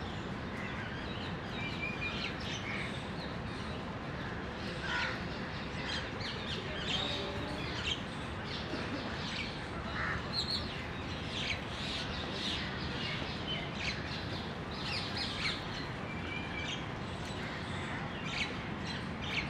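Birds chirping and calling: many short, high calls scattered throughout, over steady outdoor background noise.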